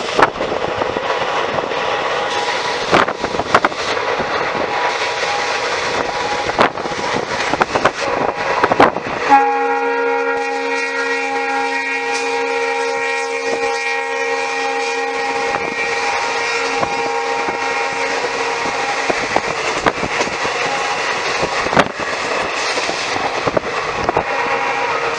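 Running noise of a passenger train at speed, heard from the window of a moving coach, with wheels clicking over rail joints. About nine seconds in, a diesel locomotive's horn sounds in one long, many-toned blast lasting several seconds.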